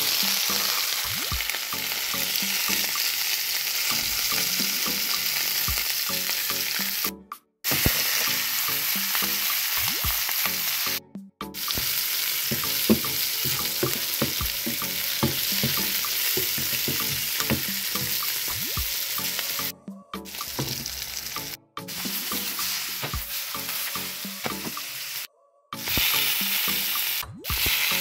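Long green peppers sizzling as they fry in oil in a stainless steel pan, with stirring and the clatter of the peppers being turned. The steady sizzle breaks off into brief silences several times.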